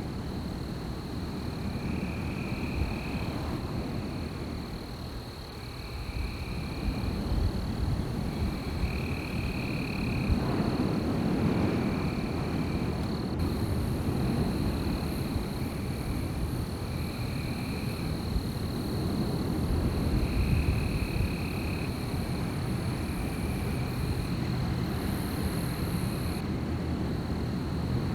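Wind blowing through forest trees, a low rushing that swells and eases. Over it a steady high insect drone runs on, and a short call of about a second repeats every couple of seconds.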